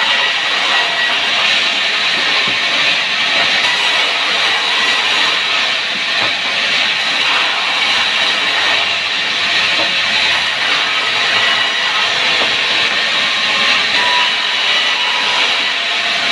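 Saw cutting through wood, a steady, unbroken hissing noise with no stroke rhythm.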